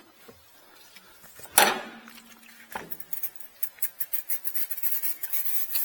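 A sharp clink with a short ringing tone, then a fainter second one, followed by music with a fast ticking beat that starts about three seconds in.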